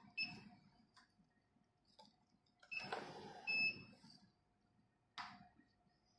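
Biochemistry analyzer keypad beeping as keys are pressed to select a test: a short beep just after the start, then handling noise with two more beeps around three seconds in. A sharp click comes about five seconds in, over a faint steady tone.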